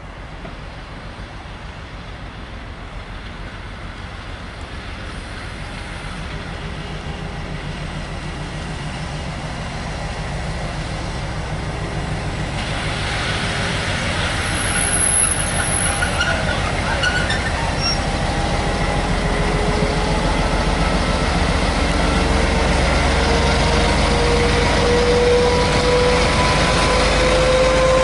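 Trenitalia D.445 diesel locomotive approaching, its engine rumble growing steadily louder. About halfway there is a burst of hiss and squeal, and near the end a whine rises slightly in pitch as the engine pulls.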